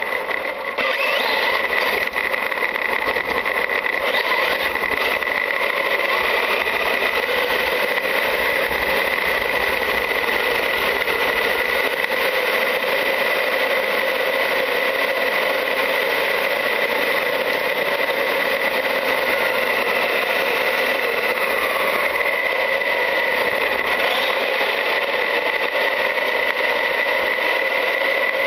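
Traxxas UDR RC truck driving, heard from a camera mounted on it: its brushless electric motor and drivetrain whine steadily over tyre and road noise, with a constant high-pitched tone throughout and middle tones that shift slightly with speed.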